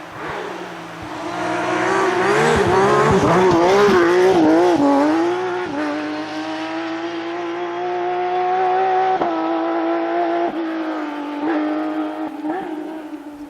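Porsche rally car engine at high revs. Its pitch wavers rapidly up and down while it is loudest, then holds high and climbs slowly, with a brief sharp dip about nine seconds in and a few smaller dips near the end.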